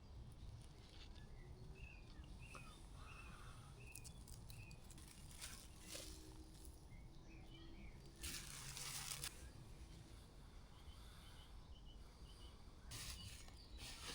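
Quiet woodland morning ambience: faint short bird calls repeating, with a few brief rustles, the loudest about eight seconds in and again near the end.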